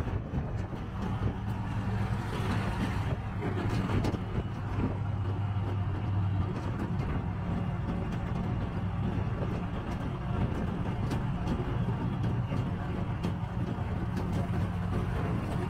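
Auto-rickshaw engine running at a steady pace on the move, heard from inside the cab, with a constant rush of road and traffic noise.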